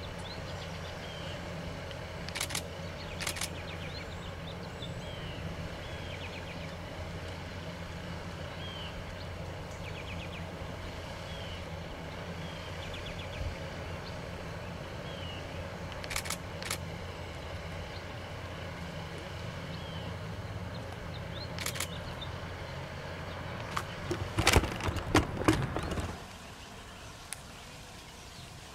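Outdoor ambience: a steady low rumble like distant traffic, with small bird chirps repeating every second or two and a few sharp clicks. Near the end a louder burst of crackling and rustling, after which the sound drops to a quieter hush.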